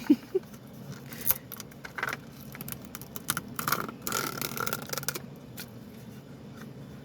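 Small plastic toy packaging being handled and opened by hand: a string of crinkles, scrapes and clicks, busiest about three to five seconds in, then settling.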